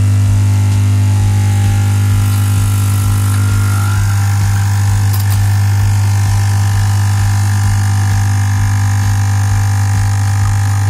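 Lavazza A Modo Mio capsule espresso machine's vibratory pump buzzing steadily as it pushes water through a capsule, its tone changing about four seconds in. Coffee begins to run near the end: the capsule is now being pierced after the pressure valve was cleaned of scale.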